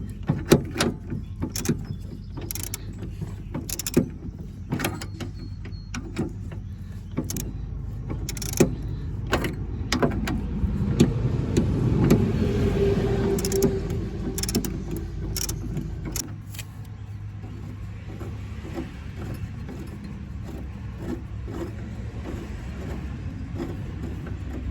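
Irregular metal clinks and knocks of hand tools and suspension parts being handled during disassembly of a Snapper Trail Cruiser's front suspension, over a steady low hum that drops away about two-thirds of the way through.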